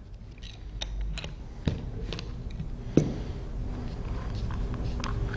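A wrench clicking and tapping on the bottom plug of a Cla-Val CRL-60 pressure relief pilot as the plug is loosened. There is a scatter of sharp metallic clicks over the first three seconds, with the loudest about halfway and three seconds in, then only low handling noise.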